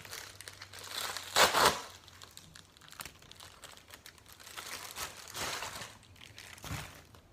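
Padded plastic mailer crinkling and rustling as it is handled and torn open, with the loudest crinkling about a second and a half in and another spell around five seconds.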